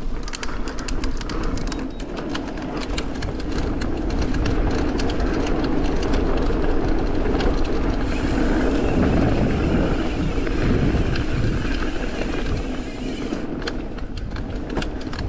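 Mountain bike riding fast down a dirt trail: a steady rush of knobby tyres on hardpack and wind noise, with rapid clicks and rattles of the bike over bumps in the first few seconds and again near the end.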